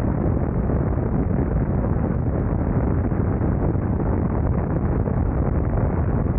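Steady wind rush buffeting the microphone of a motorcycle at highway speed, with the BMW R nineT Scrambler's boxer-twin engine running underneath at a constant cruise.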